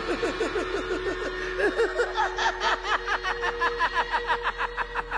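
The Joker's maniacal cackling laugh: a long, rapid run of 'ha' syllables, about five a second, that weakens near the end.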